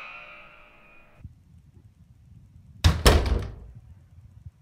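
A censor bleep tone tails off and stops about a second in. About three seconds in, a door shuts with a heavy thud, two knocks in quick succession.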